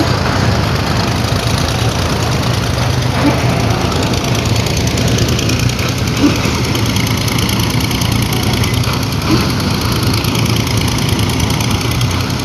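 Engine-driven machine running steadily, with a short knock about every three seconds.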